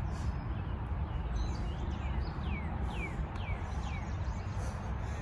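A bird calling in a run of about six short, falling whistled notes, roughly two a second, starting about a second and a half in, over a steady low rumble.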